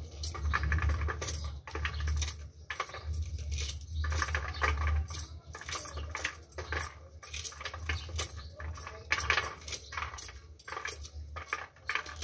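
Corn kernels being rubbed off the cob by hand, clicking and rattling irregularly as they drop onto a steel plate, over a steady low hum.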